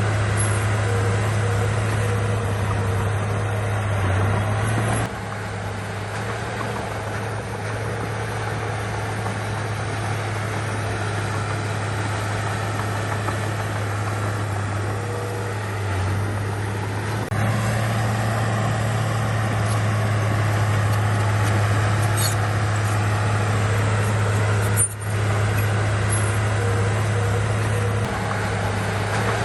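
Heavy diesel earthmoving machinery running steadily, a deep continuous engine drone, with abrupt shifts in level about five and seventeen seconds in and a brief dropout near twenty-five seconds.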